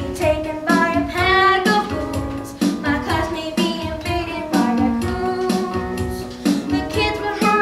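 A child singing a musical theatre song with instrumental accompaniment of regularly struck chords.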